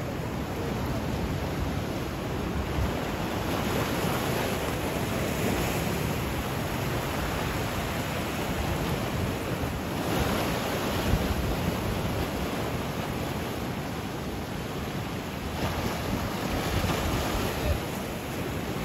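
Ocean surf washing over shoreline rocks, swelling louder three times as waves break and fall back, with wind buffeting the microphone.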